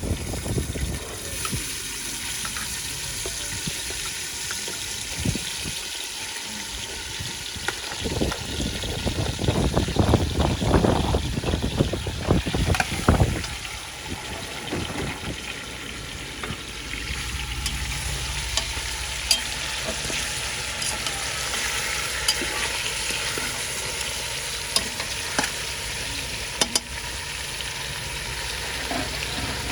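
Seasoned stew beef sizzling as it fries in a pot, with a stretch of stirring clatter in the middle.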